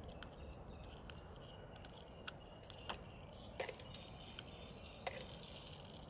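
Faint, scattered clicks and rubbing of nylon trimmer line being wound by hand onto a plastic Stihl string-trimmer spool, over a faint, steady, high-pitched outdoor background.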